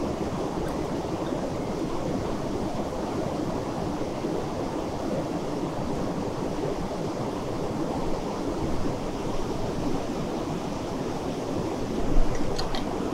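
A mountain river rushing steadily. A couple of light clinks come near the end.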